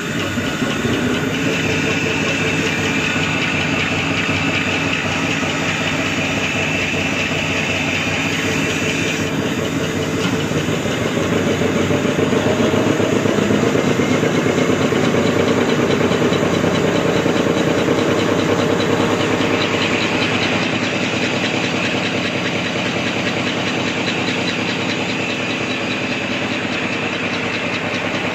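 Two-colour printing tissue napkin making machine running. Its pitch rises and it gets louder between about ten and fourteen seconds in, as the motor's speed is turned up on the variable-frequency drive.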